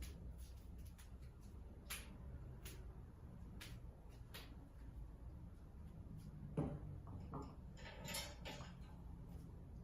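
Faint scattered clicks and light handling knocks in a small room over a low hum, with one sharper knock about six and a half seconds in and a short rustle a little later.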